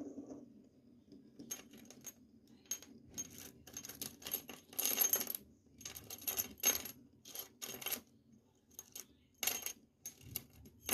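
Metal-and-wood rattle (chocalho) shaken in irregular bursts of varying length, its metal pieces jingling with a bright ring.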